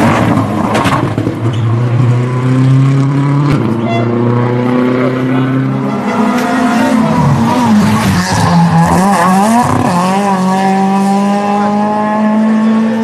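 Race car engines running at high revs as the cars accelerate past, the engine note climbing, wavering and dipping with the throttle, then climbing steadily again. There is a sharp click about a second in and another near four seconds.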